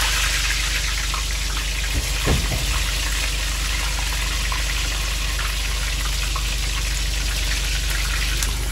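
Flautas deep-frying in a pan of hot oil: a steady sizzle of bubbling oil, with a brief knock about two seconds in.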